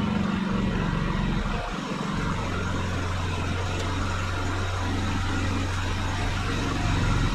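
Toro Z Master 6000 zero-turn mower's engine running while the mower is reversed. The note dips about two seconds in, holds steady, then picks up again near the end.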